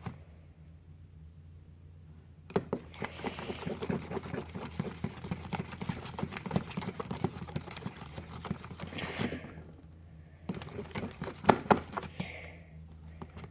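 Slime being stirred in its container: a dense run of wet, sticky clicking and squishing that goes on for about seven seconds, pauses briefly, and starts again for a couple of seconds near the end. The slime is still runny and not fully activated.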